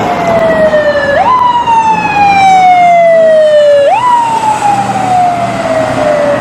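Ambulance siren sounding as the ambulance drives past: a loud tone that jumps up quickly and then slides slowly down over nearly three seconds, twice, over road noise.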